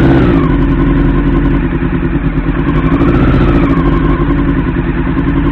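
Honda CB-1's inline-four engine running steadily just after a cold restart. The throttle is held slightly open by hand because the bike has no choke and the cold engine dies if let go.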